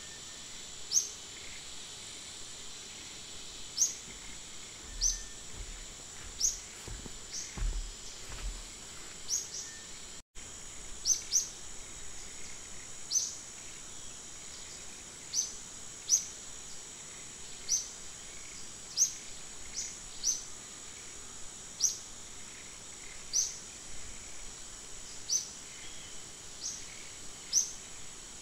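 Outdoor nature ambience: a steady high insect drone under a bird's short, sharp, downward-sliding chirp repeated every second or two. The sound cuts out for an instant about ten seconds in.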